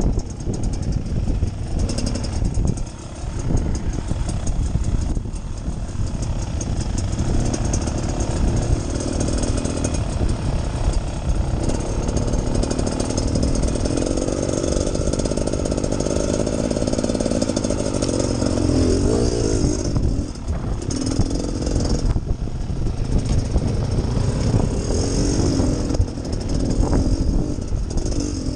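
Beta Xtrainer 300 two-stroke single-cylinder dirt bike engine running at low trail speed, the throttle worked on and off so the engine pitch rises and falls, most clearly in the middle stretch.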